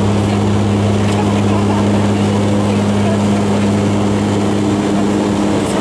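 Airliner cabin noise while taxiing: the engines and aircraft systems make a steady low hum that holds level throughout, heard from inside the cabin.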